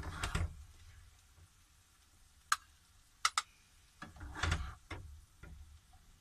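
A spatula scooping fried rice out of a frying pan into a bowl: a few sharp taps against the pan and bowl, then a longer scraping scoop about four seconds in.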